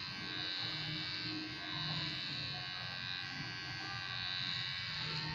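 Electric hair clipper buzzing steadily as it is run over the hair on the head, its level swelling and dipping slightly as it moves.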